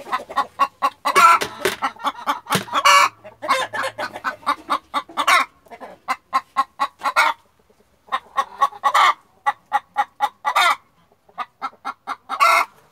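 Chickens clucking in rapid runs of short clucks, broken every second or two by a louder, drawn-out squawk, with a few brief pauses.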